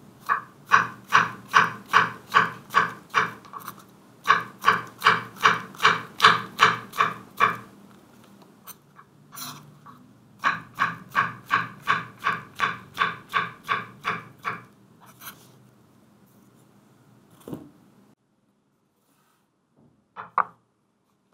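Kitchen knife slicing white button mushrooms on a wooden cutting board: three runs of quick, even cuts, about three a second, each a crisp tap of the blade through the mushroom onto the board. A short double knock near the end.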